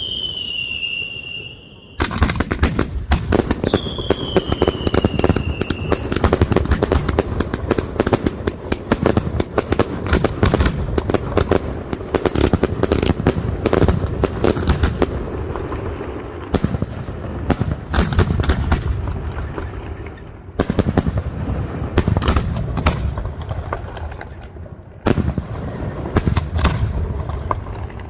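Castillo fireworks display: a whistling firework falls in pitch, then about two seconds in a dense, rapid barrage of bangs and crackles breaks out, with a second falling whistle over it. About halfway through, the barrage breaks up into separate volleys with short gaps between them.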